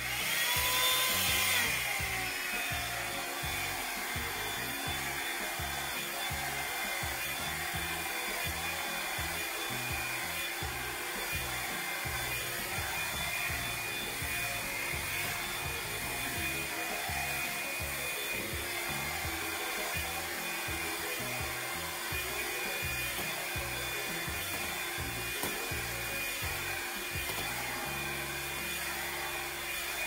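Revlon One-Step hair dryer brush running on its low setting: a steady rush of air with a motor whine, its pitch rising over the first couple of seconds as it spins up.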